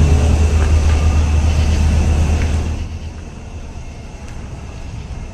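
Car engine and road rumble heard from inside the cabin, a steady low drone that drops off sharply about three seconds in and stays quieter.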